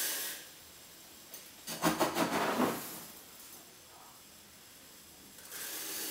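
A metal ladle handling dry ice: a hiss as a ladleful is tipped into a stainless steel pot fades out at the start, a rasping, clicking scrape about two seconds in as the ladle is scooped through the dry ice, and another hiss rises near the end as the second ladleful goes into the pot.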